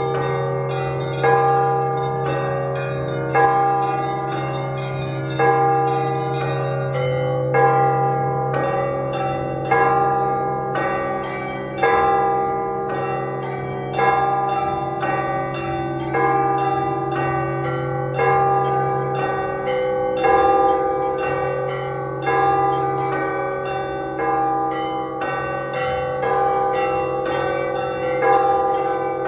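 Orthodox church bells rung together: smaller bells chime rapidly in a repeating pattern, with a heavier bell stroke about every two seconds. A big bell's low hum sounds beneath and fades about two-thirds of the way through.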